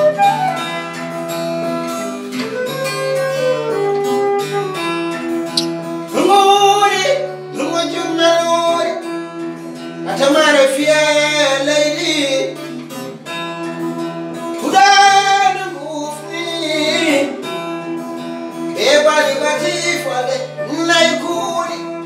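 Acoustic guitar played with plucked notes throughout, with sung vocal phrases over it that come in about every four seconds.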